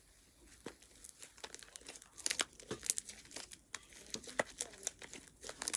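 Pink homemade slime being kneaded and stretched by hand, giving a run of irregular small clicks and crackles.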